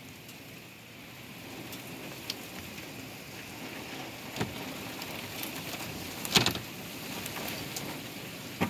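Steady rain falling in a thunderstorm, with a few sharp knocks, the loudest about two-thirds of the way through.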